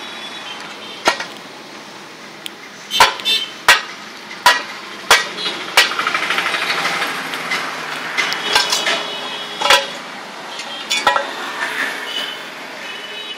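Sharp knocks and clinks, as of metal being struck, a dozen or so at irregular intervals over a steady background noise.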